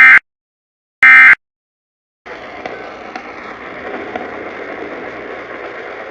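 Emergency Alert System end-of-message data bursts: the last two of three short, loud digital screeches about a second apart. After a second of silence, a steady broadcast hiss comes in.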